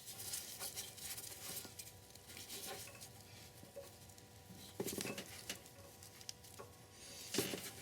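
Faint light scrapes and small clicks of a plastic housing being handled and slid back into place in a car's engine bay.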